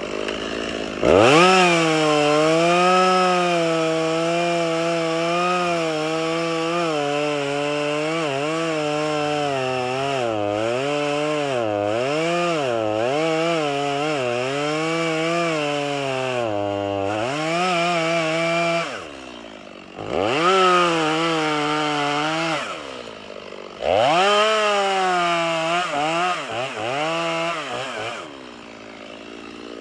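Gas chainsaw cutting wood. It revs up about a second in and runs under load for a long stretch, its pitch wavering as the chain bites. It drops back to idle, then is revved into the wood in two shorter bursts before settling to idle near the end.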